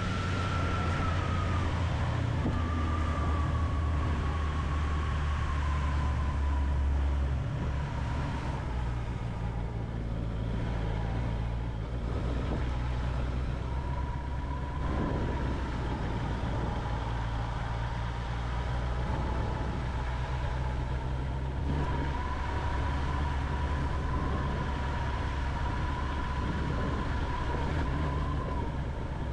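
Honda CB650R's inline-four engine running steadily under way, with a steady low hum and a thin high whine drifting slightly in pitch, over wind noise.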